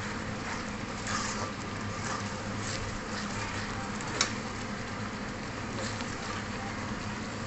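Spiced masala paste sizzling in oil in a wok as it is stirred with a metal spatula, with a steady low hum under it. One sharp click about four seconds in.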